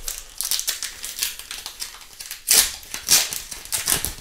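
Foil wrapper of an Upper Deck Trilogy hockey card pack crinkling as it is handled and torn open, with a few louder crackles in the second half.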